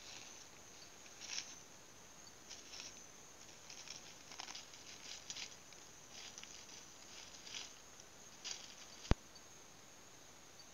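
Dry leaf litter rustling and crackling in short, scattered bursts under a small animal's steps as it forages, with one sharp click about nine seconds in.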